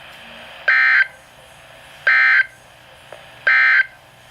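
Emergency Alert System end-of-message signal on NOAA Weather Radio: three short bursts of digital data tones, about a second apart, marking the end of the alert. A low hiss of receiver static runs under them.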